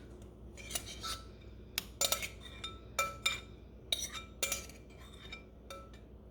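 A metal utensil clinking and scraping against a frying pan while potatoes are spread out in the egg mixture: about a dozen irregular clinks, each with a short metallic ring.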